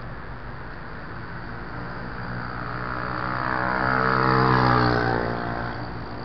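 A motor vehicle approaching and passing close by. Its engine sound swells to a peak about four and a half seconds in and drops in pitch as it goes past, over steady background noise.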